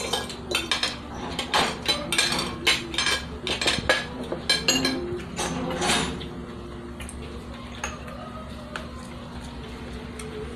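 Spoons and forks clinking and scraping against plates and bowls during a meal, a quick run of clicks over the first six seconds that thins out to a few faint taps.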